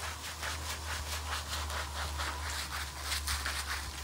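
Stiff-bristled scrub brush scrubbing a pinto foal's wet, soapy coat in quick, even strokes, about four a second.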